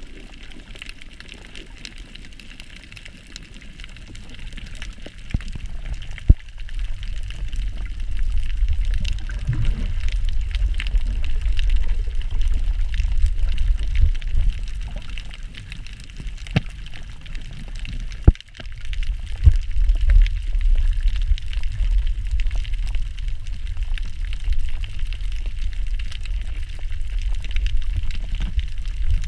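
Underwater sound from an action camera in its waterproof housing: a low, uneven rumble of water moving against the housing that grows louder about eight seconds in, over a steady fine crackle, with two sharp knocks, one about six seconds in and one near eighteen seconds.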